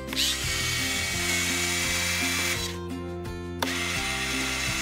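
Electric retractable landing gear of a radio-controlled F4U Corsair model cycling. The gear motor whirs with a brief rising whine as it starts and runs for about two and a half seconds while the wheel folds up into the wing. After a pause of about a second it starts again with a click as the wheel comes back down.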